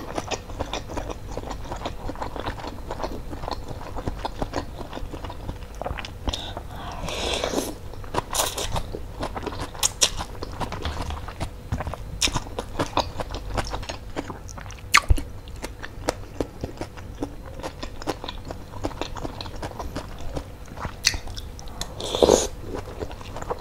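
Close-up mukbang eating sounds of bakso meatball noodle soup: wet chewing with many small mouth clicks, and noodles slurped in two longer swells, one about 7 seconds in and one near the end. A single sharp tap about halfway through.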